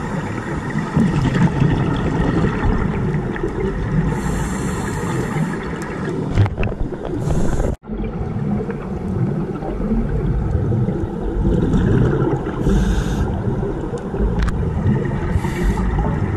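Underwater sound through a camera housing: a scuba diver's regulator, with a steady low bubbling rumble of exhaust bubbles and a few brief hisses of breaths drawn through the regulator. The sound cuts out for an instant about halfway through.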